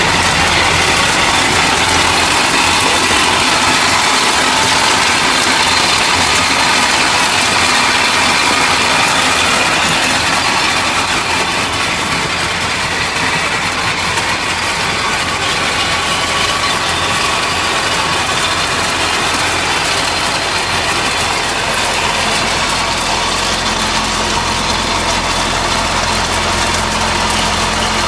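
Indo Farm tractor's diesel engine running steadily under load as it pulls a belt-driven soil and stone implement through stony ground. A dense, even clatter and rush of noise from the working machine sits over the engine throughout.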